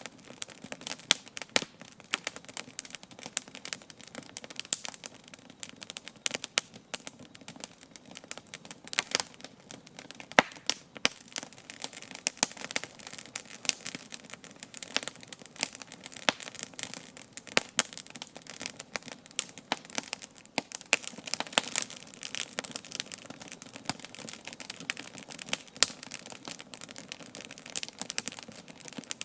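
Wood campfire crackling: dense, irregular snaps and pops, several a second, over a steady hiss.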